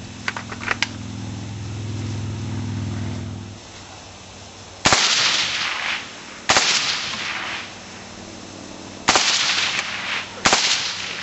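Four single shots from a suppressed Heckler & Koch G36 rifle. The first comes about five seconds in, and the shots are spaced one and a half to two and a half seconds apart, each followed by a short echoing tail.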